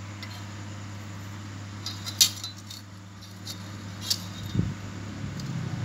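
A few light metallic clinks and taps as a steel planer blade is handled against a square, the sharpest about two seconds in, over a steady low hum.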